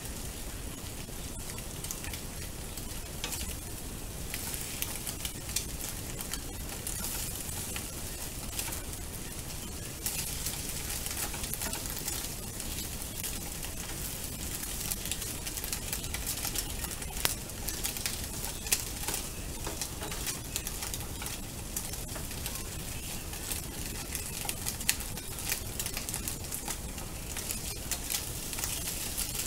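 Beaten egg sizzling in an oiled frying pan as it is stirred and broken up into scrambled pieces, a steady frying hiss with many small sharp crackles. The sizzle gets a little louder about ten seconds in.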